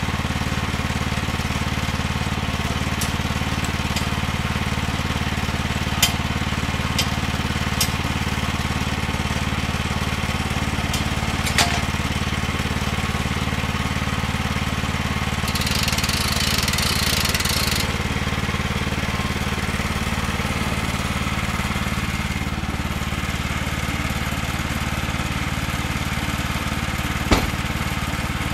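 A portable band sawmill's small gas engine running at a steady speed, with a few sharp knocks, the loudest near the end, and a brief hiss a little past halfway.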